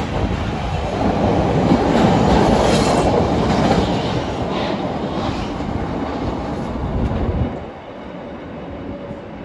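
CTA 5000-series rapid-transit train pulling away from the station platform, its wheels running loudly along the rails. It is loudest about two seconds in, fades as the train moves off down the track, and drops away sharply near the end.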